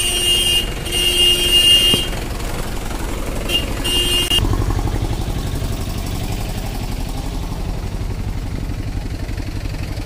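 Vehicle horn honking: two long blasts, then two short ones about three and a half to four seconds in. After that a vehicle engine runs with a steady low throb.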